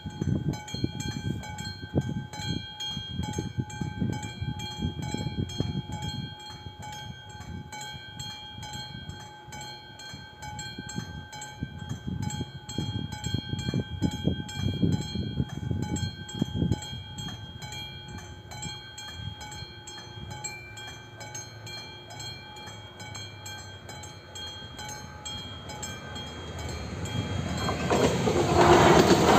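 Level-crossing warning bell ringing steadily, a repeating electronic chime that sounds while the red lights flash, over gusts of low rumble. Near the end an approaching train grows quickly louder and drowns the bell.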